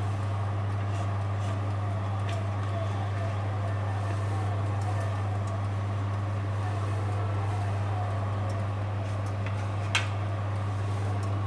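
Electric oven running with a steady low hum, with a few light clicks of a fork against the grill tray as butter is placed on the prawns, the sharpest about ten seconds in.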